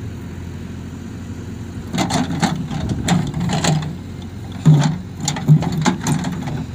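JCB 3DX backhoe loader's diesel engine running while the backhoe arm swings and lowers its bucket into a pile of soil. The engine is steady for the first two seconds, then surges unevenly in loudness as the arm works.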